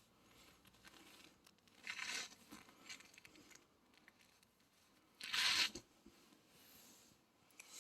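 Snoring: two loud, hissing breaths about three and a half seconds apart, with fainter breaths between.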